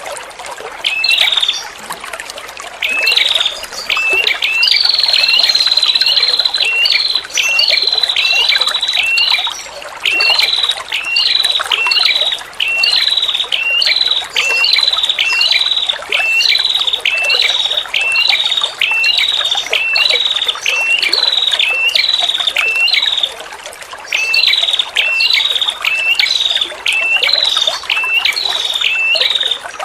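Female prenjak kepala merah calling: sharp high chips repeated a little under two a second, with a long high trill about five seconds in and short pauses between series. Trickling water runs steadily underneath.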